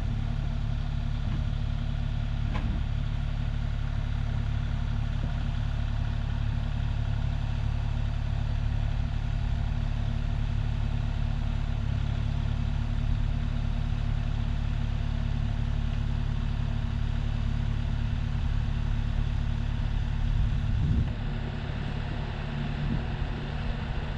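Kubota KX040 mini excavator's diesel engine running steadily as it works the boom carrying roof trusses on its forks, easing off slightly about 21 seconds in.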